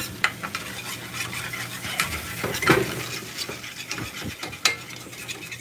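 Slotted metal spatula stirring and scraping a flour-and-milk gravy around a cast-iron skillet as it thickens, with irregular scrapes and clicks of metal on the iron pan.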